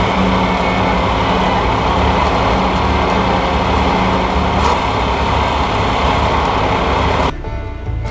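John Deere 1020 tractor's three-cylinder gasoline engine running steadily as the tractor drives along. It cuts off abruptly near the end, giving way to music.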